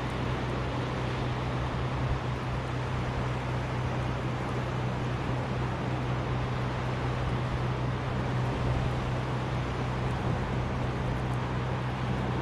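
Steady rush of surf and wind on the microphone, with a constant low hum underneath.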